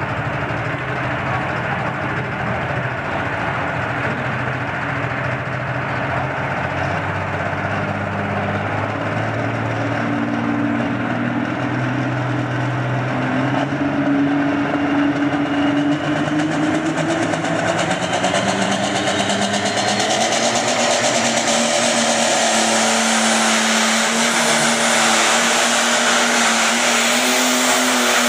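Light pro stock John Deere pulling tractor's turbocharged diesel engine revving hard with the sled hooked on, its pitch climbing steadily, louder from about halfway through as it launches and pulls the sled down the track.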